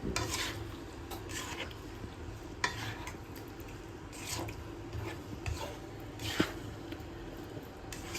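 A cooking utensil stirring chicken curry in a pot, scraping against the pot in short, irregular strokes about once every second or so, over a steady low hum.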